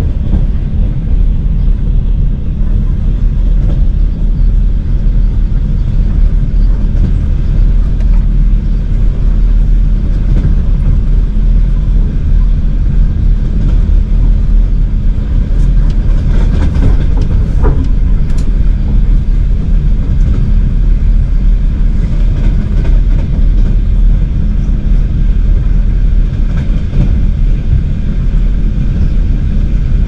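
Steady low rumble of a moving passenger train, heard on board as it runs along the line.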